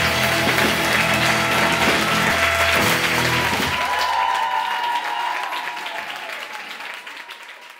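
A live band's music, ending about four seconds in, with audience applause over it; the applause carries on and fades out near the end.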